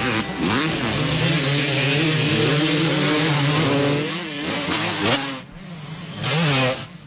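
Engine sound of 250cc motocross dirt bikes racing, revving hard with the pitch rising and falling. The sound falls away abruptly about five seconds in, then a bike revs up again briefly.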